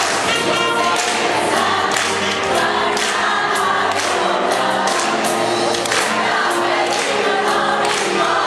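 Gospel choir singing in full voice over band accompaniment.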